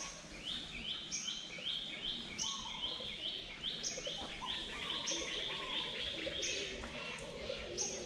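Birds chirping in the trees: a rapid run of short, repeated chirps, about three a second, with higher notes and lower calls mixed in.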